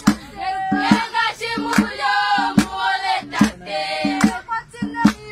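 Traditional Owambo dance song sung by a group of voices in chorus, over a sharp, steady beat struck about every eight-tenths of a second.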